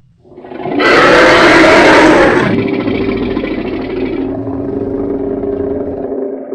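Designed dragon roar sound effect: it swells up out of silence into a loud roar, then at about two and a half seconds drops into a lower, sustained growl with a steady drone underneath.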